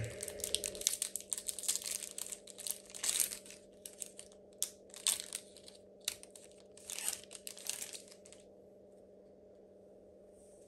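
Foil wrapper of a Pokémon TCG booster pack being torn open and crinkled: a run of short crackling rips and rustles that stops about eight seconds in.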